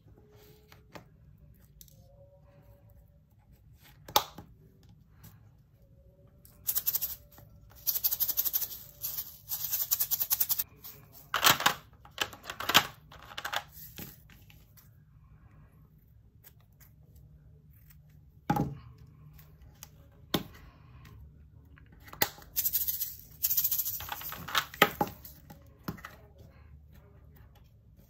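Plastic film on a diamond painting canvas crinkling and rustling in two long stretches of bursts as hands rub a dryer sheet over it and pull at loose static-charged strips, with a few sharp clicks in between.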